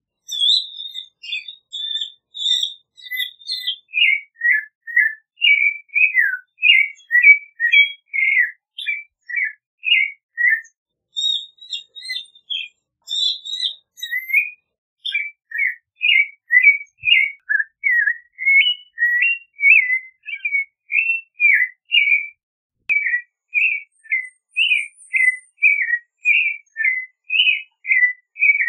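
Clay-colored thrush singing: a long, unbroken run of short, clear whistled notes, about two a second, with a brief pause about eleven seconds in. The first few notes are higher than the rest.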